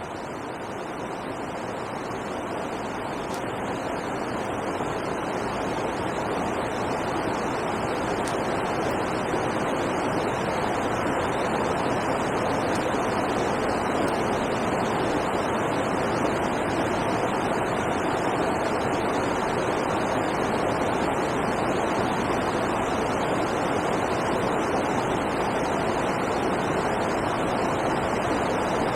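Steady rushing of water pouring over a river weir: an even, unbroken wash of noise.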